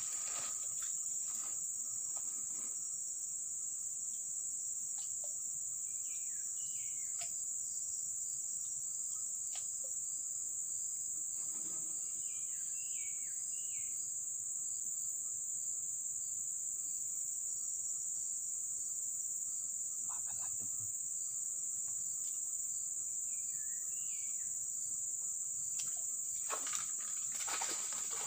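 Insects keep up a steady high-pitched drone, with a few short bird chirps now and then. Near the end there are some brief rustling handling noises.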